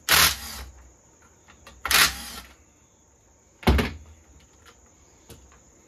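Workbench handling noise while a Stihl MS 201 TC chainsaw is taken apart: three short hissing, whirring bursts about two seconds apart, the last ending in a sharp knock, with faint clicks of tools and parts between.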